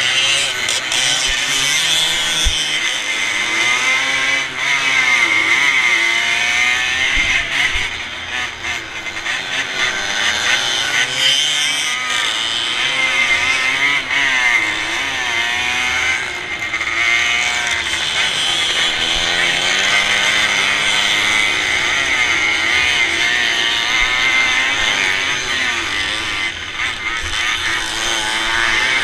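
Onboard sound of a vintage motocross motorcycle racing: its engine revs up and drops back again and again as the rider accelerates, shifts and slows for turns. Other race bikes are running close ahead.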